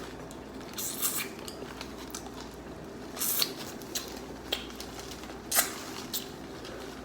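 Close-miked eating sounds: chewing with several short, wet mouth clicks and smacks, spaced irregularly.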